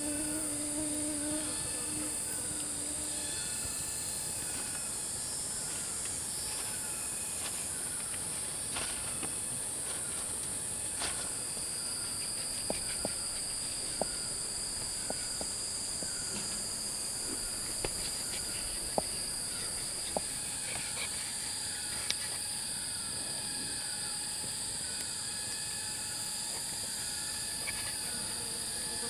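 Forest insect chorus: a steady, high-pitched continuous drone. Over it runs a short chirp repeated about once a second, and a second high, steady insect tone joins partway through. A few sharp clicks sound in the middle.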